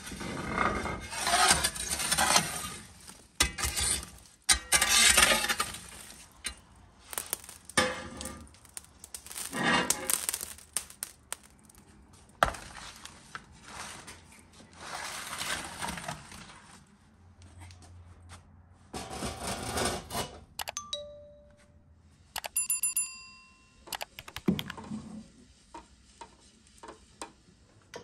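Cooking and food-preparation handling sounds: repeated bursts of scraping or rustling and sharp knocks, then a couple of short ringing clinks near the end.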